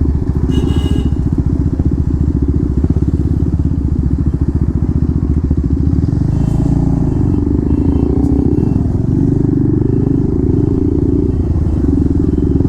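Two single-cylinder motorcycles, a KTM Duke 390 and a Pulsar 125 fitted with a loud SC aftermarket exhaust, running on the move with a steady, rapid exhaust beat.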